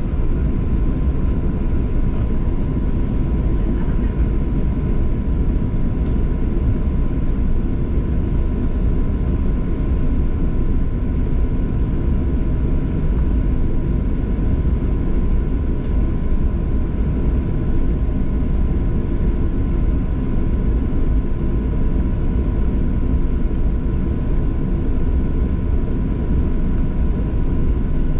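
Boeing 737-800's CFM56 turbofan engines running at high thrust, heard from inside the cabin. A dense, steady low rumble with a steady whine running through it.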